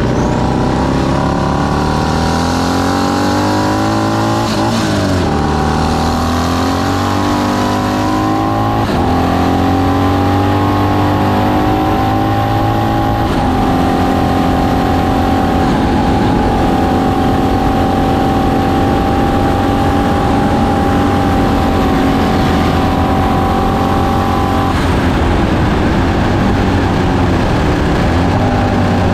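Racing motorcycle engine heard from on board at full speed: it climbs in pitch with several gear changes, then holds one steady high note for a long stretch, and the note changes and wavers near the end. Wind rush over the fairing runs underneath.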